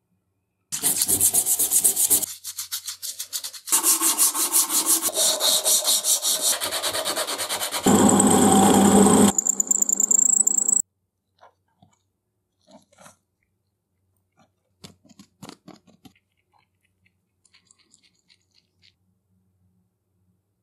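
Rough, rapid rubbing and cutting on wood in several stretches, ending with a drill press bit cutting into a wooden hacksaw handle; it stops sharply about eleven seconds in, leaving only faint light clicks.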